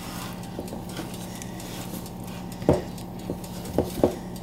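Wooden spoon stirring wet no-knead bread dough in a plastic tub, with a few sharp knocks of the spoon against the tub, one about two-thirds in and two more near the end. A steady low hum runs underneath.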